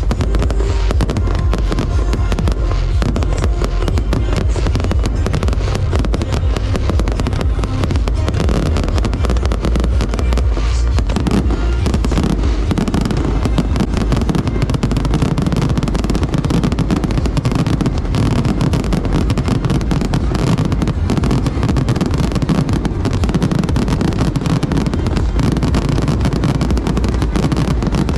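A dense, continuous barrage of firework explosions, with music playing underneath. The bursts grow heavier and deeper after about ten seconds.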